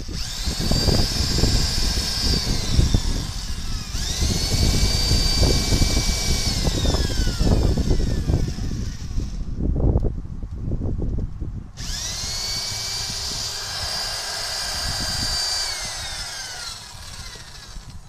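Electric drill boring a hole, run three times: the motor whines up to speed, holds, then winds down with a falling whine. The bit grinds and chatters in the work during the first two runs.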